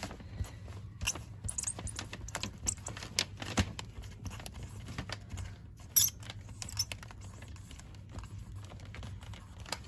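Scattered clicks, taps and rustles of a present being wrapped by hand with tape, over a low steady hum.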